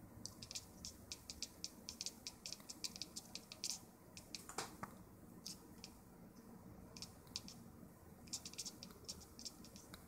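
Tuxedo cat chattering at prey it sees: runs of rapid, faint clicks, several a second, that come and go, with one short falling chirp near the middle.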